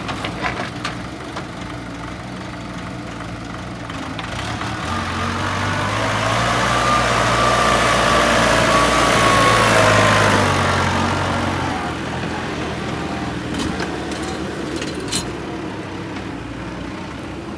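A heavy vehicle's engine running. It grows louder over several seconds to a peak a little past the middle, with a whine that dips slightly in pitch, then eases back. There are a few sharp clicks near the start and again near the end.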